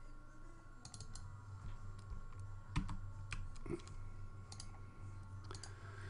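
Scattered computer keyboard and mouse clicks, a few sharp isolated taps, over a steady low electrical hum.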